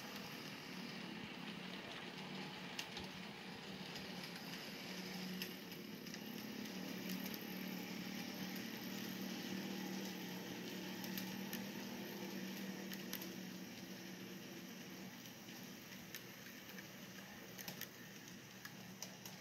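Model freight train rolling past: a steady hum of wheels on track with scattered sharp clicks, swelling a little through the middle and fading near the end.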